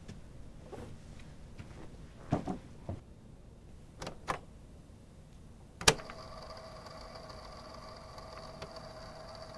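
A few scattered soft knocks, then a sharp click about six seconds in followed by a steady hum.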